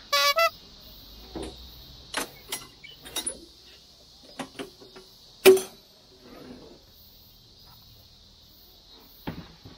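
Small objects being handled: scattered clicks and light knocks, the loudest a single ringing clink about halfway through, over a steady high-pitched hiss.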